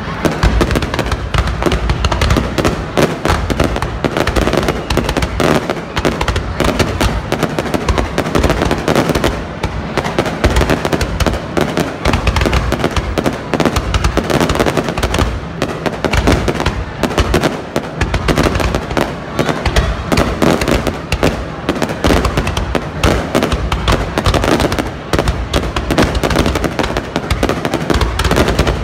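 Aerial fireworks display: a dense, unbroken barrage of shells going off and crackling, with many deep booms mixed in.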